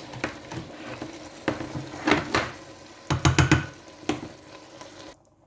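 A spoon knocking against its container again and again as thick, almost solid coconut milk is scooped out into a pot. There are single knocks and a quick run of several knocks a little past halfway.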